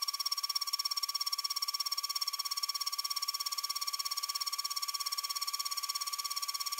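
Single-flute carbide endmill on a CNC mill, trochoidal-milling a slot in 5083 aluminium plate: a steady, high-pitched cutting whine that pulses rapidly and evenly.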